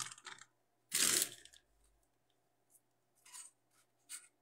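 A short crinkling rustle about a second in, then a few faint rustles and taps: a plastic bag of marshmallows and a craft-foam candy box being handled.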